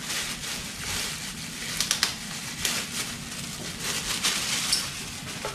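Plastic wrapping crinkling and crackling as it is pulled off a microphone scissor-arm stand: irregular sharp crackles, a few louder ones about two seconds in.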